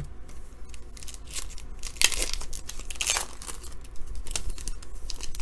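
A 2017-18 Panini Hoops basketball card pack's wrapper being torn open and crinkled by hand, with the loudest rips about two and three seconds in.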